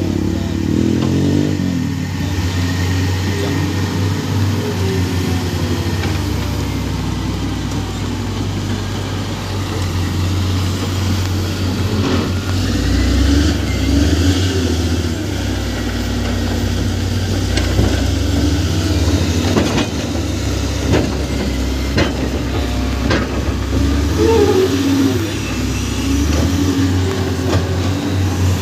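Heavy diesel engines of a wheel loader and a crawler excavator running under load as they shift landslide mud, the engine note shifting as they work. Several sharp knocks cut through, mostly in the middle part.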